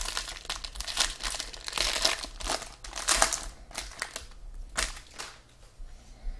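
Foil trading-card pack wrapper crinkling as it is handled, dense for the first three and a half seconds, then a few last crackles before it settles.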